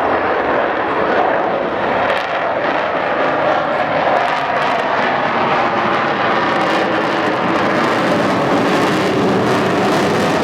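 Avro Vulcan jet bomber flying over, its four Rolls-Royce Olympus turbojets giving a loud, steady jet roar, with faint steady tones showing through near the end.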